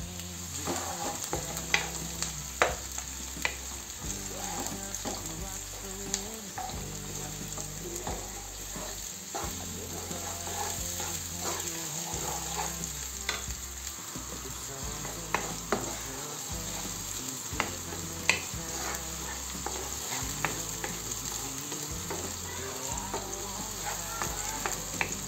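Chopped onion sizzling in hot oil in a frying pan, stirred with a wooden spoon that knocks against the pan now and then.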